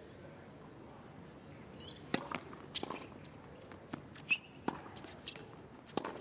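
Faint, sharp taps of tennis on a hard court: a tennis ball bouncing and players' footsteps on the court surface, irregularly spaced, starting about two seconds in.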